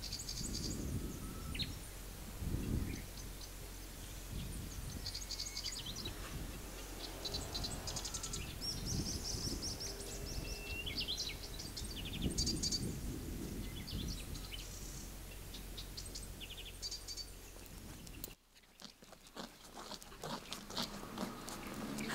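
Birds chirping and trilling in short scattered calls over a steady low outdoor rumble. About eighteen seconds in this ambience cuts off abruptly to a quieter background with a run of light clicks.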